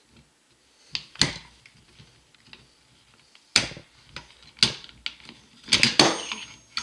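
Sharp metallic clicks and clacks, a handful spread over several seconds, as the gas tube and gas piston of a 1954 Soviet SKS rifle are unlatched and worked out of the rifle.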